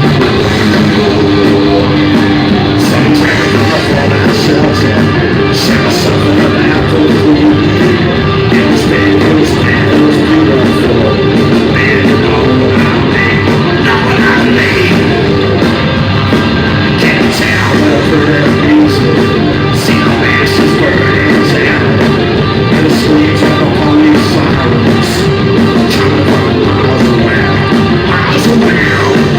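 Rock band playing live and loud, guitars and drums driving a steady beat, with singing over it at times.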